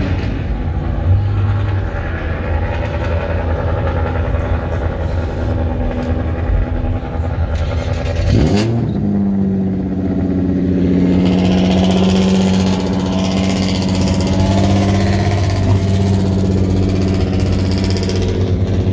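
Car engines running in a parking lot, a steady idling drone. About eight and a half seconds in, an engine's pitch swoops briefly, and a steadier, higher engine note then holds.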